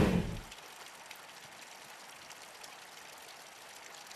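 The tail of a revving-car sound effect fades out in the first half second, then only a faint steady hiss remains.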